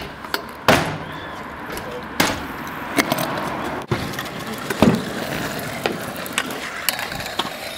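Stunt scooter wheels rolling over asphalt and ramps, with several sharp clacks as the deck and wheels land or strike the ramp, loudest about a second in and near five seconds in.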